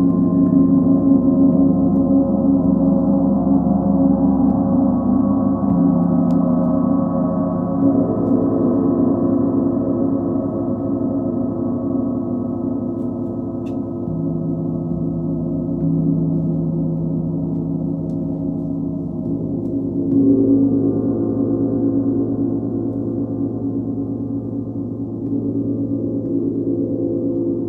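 Large planetary gongs (Sun, Full Moon and Earth) sounding together in a continuous, shimmering wash of deep overlapping tones. Fresh swells come in about 8, 14 and 20 seconds in as the gongs are played again.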